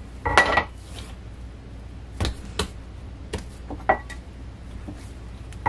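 Metal bench scraper knocking and tapping on a silicone pastry mat as bread dough is cut and portioned: about six sharp clicks spread through, the loudest about half a second in, a couple with a brief metallic ring.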